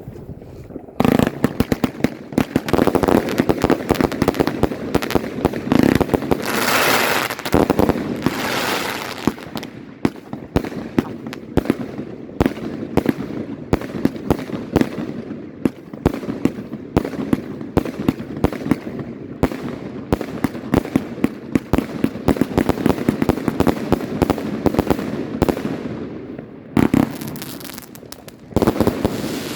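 Volt! Heisenberg consumer firework battery firing: a rapid, nearly continuous string of shots and bangs over crackling, with a brief lull about 26 seconds in before a few more heavy shots.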